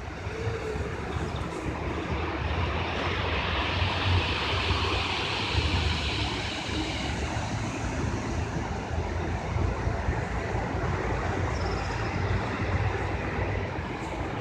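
Ocean surf: waves breaking and washing up the shore in a continuous rush over a low rumble, with one wave swelling louder a couple of seconds in and fading by about seven seconds.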